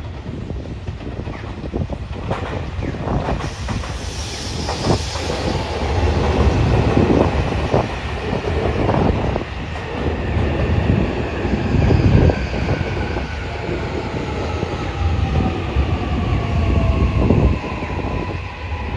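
Electric commuter train running on the rails, its wheels knocking over rail joints over a steady rumble, while the motor whine falls slowly and steadily in pitch as the train slows.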